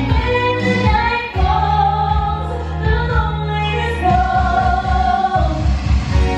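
A woman singing a pop song live over a backing track through a theatre's sound system. She holds long sung notes over a steady bass line.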